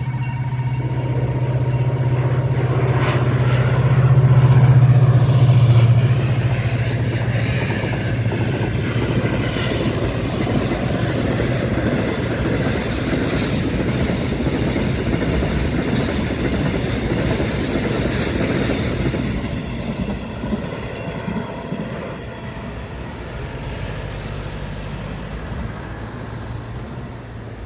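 Diesel locomotive hauling a freight train of empty bulk cement tank wagons past: the engine's steady hum is loudest about four to six seconds in as the locomotive goes by. Then comes a long run of wheels rolling and clattering over the rails as the wagons pass, fading over the last several seconds as the train moves away.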